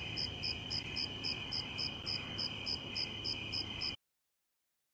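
Crickets chirping on a warm night, an even train of short high chirps at about four a second over a steady high insect drone. The sound cuts off abruptly about four seconds in.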